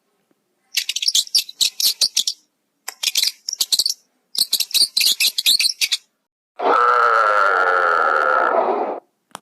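Small bird chirping in three quick runs of rapid, high notes, then a loud, harsh animal call held for about two and a half seconds near the end.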